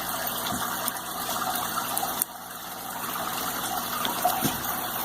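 Steady background hiss with a low hum underneath, dipping briefly a little after two seconds in.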